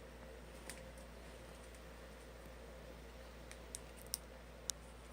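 A few small sharp clicks and light taps over a low steady hum, from handling the replacement laptop LCD panel as its plastic covering is taken off. The clicks come once about a second in and then three times close together near the end.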